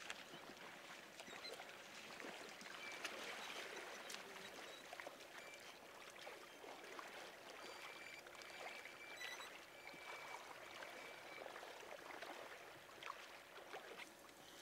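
Faint lapping and trickling of shallow water at the shoreline, with scattered small clicks and a few short high whistle-like tones around the middle.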